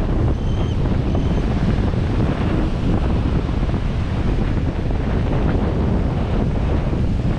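Steady wind rush buffeting the microphone of a 4x4 driving slowly along beach sand, with surf breaking close alongside.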